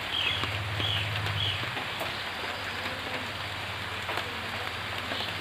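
Steady rain falling on foliage, with a few short bird chirps in the first second and a half and a low steady hum, strongest early on.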